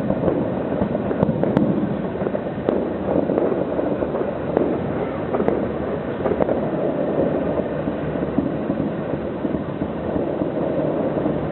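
Fireworks going off without pause: a dense run of bangs and crackles, with sharper reports standing out now and then.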